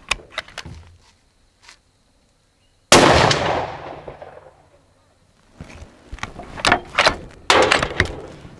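A single rifle shot from a Black Creek MRX Bison in 5.56 NATO about three seconds in, a sharp report that dies away over about a second and a half. A run of sharp metallic clicks and clacks from handling the rifle comes later, near the end.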